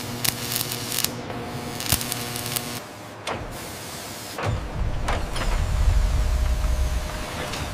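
Sharp metallic clicks and knocks over a steady machine hum. Then, from about four and a half seconds in, a power torque tool's motor runs with a low, rumbling whir as it tightens a large bolt up toward torque.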